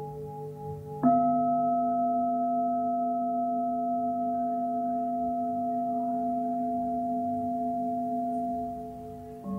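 Singing bowl: the pulsing ring of an earlier strike gives way, about a second in, to a fresh strike that rings on steadily with several tones and fades near the end.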